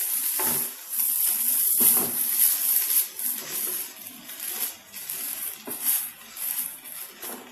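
Rice vermicelli stir-frying in a non-stick wok: a steady sizzle, with a spatula stirring and tossing it in irregular scraping strokes.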